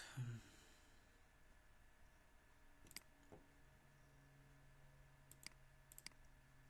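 Near silence broken by a few computer mouse clicks: one about three seconds in, then two quick double clicks around five and a half and six seconds, over a faint low hum.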